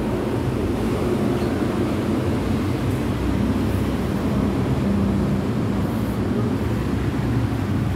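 A steady low rumble of a running engine.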